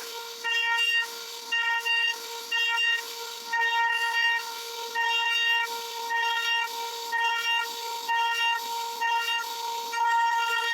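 CNC router spindle running with a steady high whine and hiss, the cutting sound swelling and easing about twice a second as the bit carves wood.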